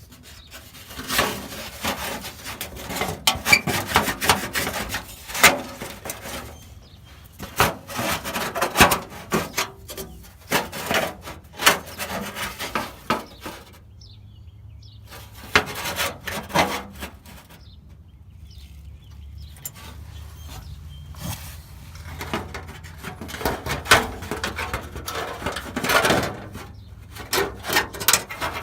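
Hand work on parts: irregular rubbing and scraping with sharp clicks and knocks, in bursts separated by short pauses.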